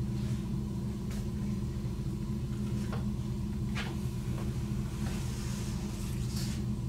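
Steady low hum, with a few brief soft rustles. About four seconds in, a card slides out of a wooden kamishibai theatre to show the next picture.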